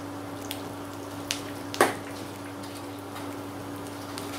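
Mustard, cumin and fenugreek seeds and sliced shallots sizzling in hot oil, with a few sharp pops as the seeds begin to splutter; the loudest pop comes about two seconds in. This is the tempering stage, when the oil is hot enough for the mustard seeds to crackle.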